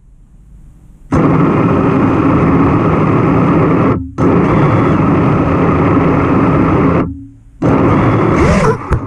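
Racing quadcopter's BrotherHobby R5 2450kv motors and Gemfan Flash 5149 propellers spun up in three bursts of about three seconds each, cutting off sharply in between: a loud rush of prop wash over a steady motor tone. The quad does not move while they run, the sign of a crashed quad stuck on the ground and being throttled up to break free.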